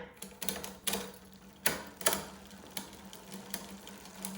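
Bicycle drivetrain turning, with the chain ticking irregularly against the rear cassette over a steady low hum. The ticking is the sign of a rear derailleur not aligned with the sprocket because the shift cable is still too slack.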